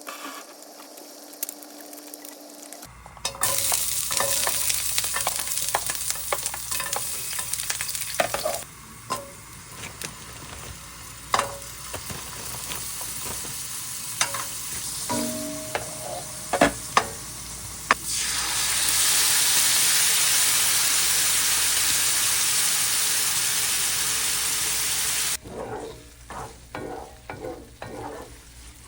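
Food frying in a hot pan, sizzling loudly in two long spells, with sharp clicks and taps of utensils between them.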